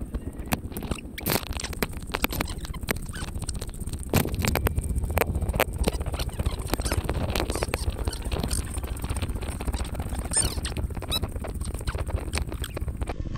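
Footsteps of people walking in flip-flop sandals over a paved and gravel road: irregular slaps and crunches over a steady low rumble.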